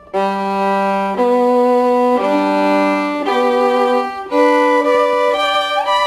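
Background music: a slow string melody of long held notes, changing about once a second, with a rising slide near the end.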